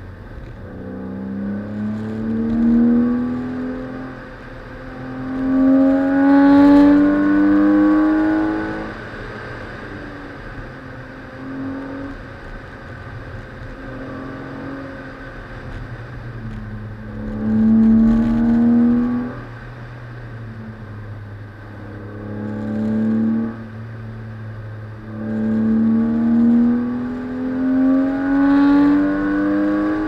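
BMW E36 328i's 2.8-litre straight-six accelerating hard in several pulls, its pitch rising through each, then easing off between them. The loudest pulls come about six seconds in, around eighteen seconds, and near the end, over a steady low rumble.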